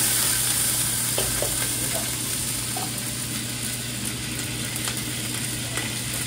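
Pork fat boiling in water in a large stockpot on a gas range, being rendered into lard: a steady hiss over a low steady hum of kitchen equipment, with a few light clicks of utensils.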